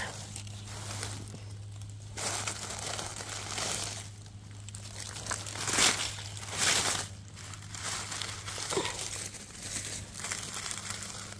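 Dry fallen leaves rustling and crackling as a gloved hand pushes through the forest-floor litter, in irregular bursts with short pauses between.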